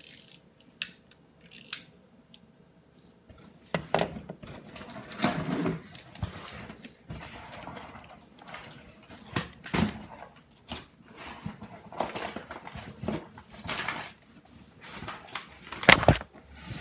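Cardboard shipping box being opened by hand: flaps pulled and folded back, with cardboard rustling, scraping and clicking in fits and starts, and a sharp knock near the end.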